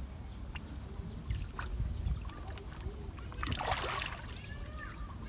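A crowd of fish thrashing at the surface of a pond, with small splashes and one bigger burst of splashing, churned water about three and a half seconds in, over a low rumble.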